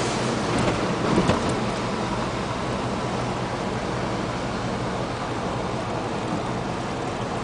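4x4 truck driving on a snow-covered road: a steady engine drone under even tyre and road noise, with a couple of brief knocks about a second in.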